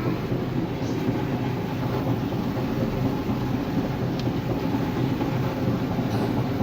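Motorized treadmill running: a steady rumble of the motor and the rolling belt.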